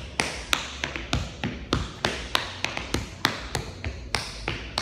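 Metal taps on tap shoes striking a hard studio floor in a fast, syncopated run of taps, about four to five sounds a second, as a tap dancer works through an advanced turning combination of rips, digs, heel drops and brushes.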